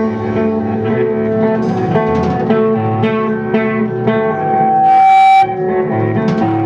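Live instrumental rock trio playing: electric guitar, bass guitar and drum kit. The music swells louder about five seconds in with a long held high guitar note, then drops back abruptly.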